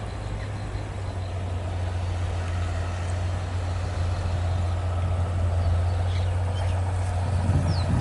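A heavy engine running steadily with a low drone that slowly grows louder.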